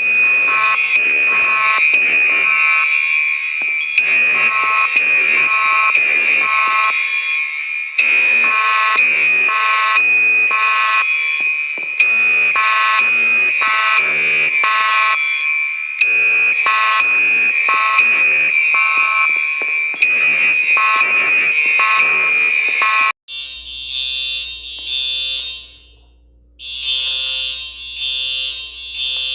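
Fire alarm sounding in a temporal-three pattern: three blasts, a pause, repeating about every four seconds over a steady high tone. About 23 seconds in it cuts to a different, higher-pitched alarm sounding in short groups of pulses over a low electrical hum.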